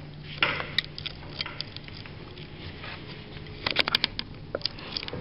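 Scattered light clicks and taps over a steady low hum, with a quick cluster of several clicks a little under four seconds in.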